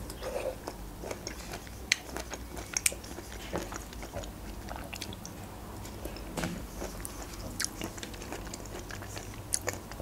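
Close-up chewing and wet mouth sounds of someone eating a juicy pineapple ring, with scattered small clicks and smacks, and fingertips being licked.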